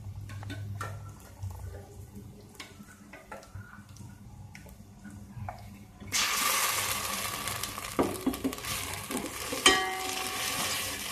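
Onion and coconut paste frying in hot oil in a stainless steel pot. Faint crackles come first, then a loud sizzle starts suddenly about six seconds in as the paste is stirred, with a couple of sharp knocks of the spoon against the pot.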